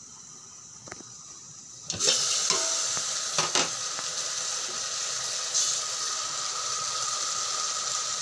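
Chicken pieces sizzling in their own rendered fat in a stainless steel pot, faint under a glass lid at first. About two seconds in the lid comes off and the sizzle turns suddenly loud and steady, with a few metal knocks.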